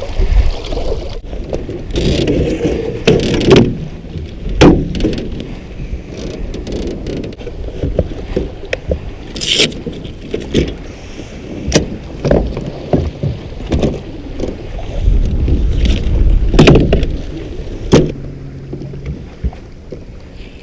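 Irregular knocks and clicks of gear being handled in a small boat, over low rumbling wind on the microphone.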